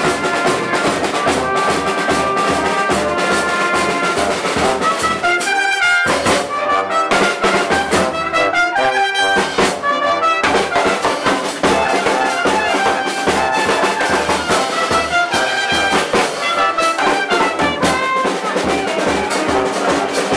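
Street brass band playing a tune: brass and tuba over a steady bass-drum beat.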